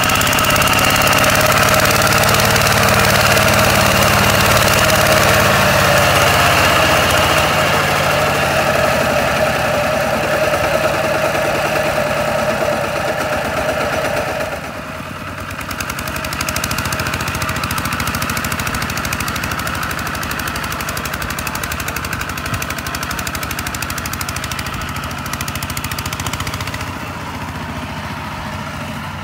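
Kubota RT140 walking tractor's single-cylinder diesel engine running hard under load while its wheels churn in the mud. About halfway through the engine sound drops suddenly to a quieter, steady run.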